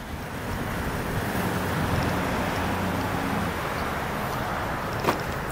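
Steady low outdoor rumble of traffic and wind on the microphone, with a sharp click near the end as the car's door latch is opened.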